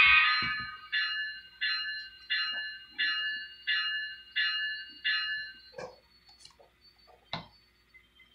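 Sound-equipped model locomotive's sound decoder giving a warning signal: one long tone, then seven shorter rings about 0.7 s apart, each sounding sharply and fading away. Two sharp clicks follow near the end.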